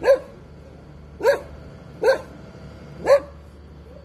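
A dog barking: four short, sharp barks about a second apart.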